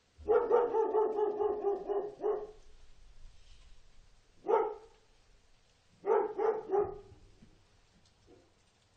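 A dog barking: a quick run of barks that run together for about two seconds, a single bark about four and a half seconds in, then three quick barks about six seconds in and a faint last one near the end.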